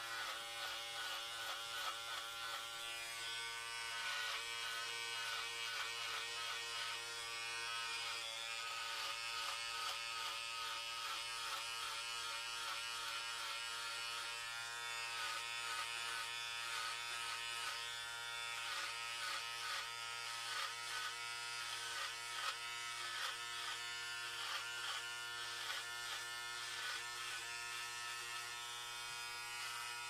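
Electric hair clippers running and cutting hair: a steady buzz whose texture flickers unevenly as the blades pass through the hair.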